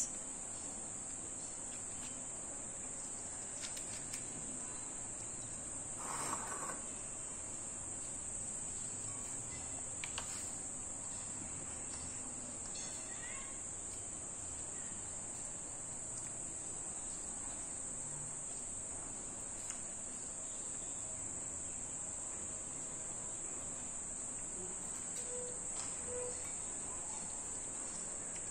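A steady, high-pitched insect-like shrill, with a brief rustle about six seconds in.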